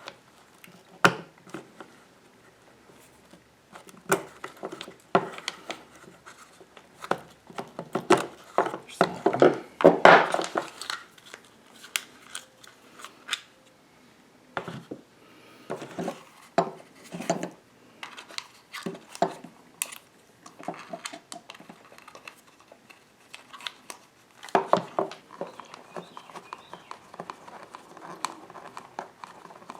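Hands working wire connectors and a wiring harness free of a mini lathe's speed-controller box: scattered small plastic clicks, scrapes and knocks, busiest about a third of the way in.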